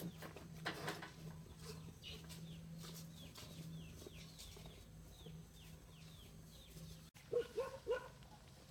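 Chickens calling: a run of short, high, falling peeps in the middle, then a few short, lower clucks near the end, over a steady low hum that cuts off abruptly about seven seconds in.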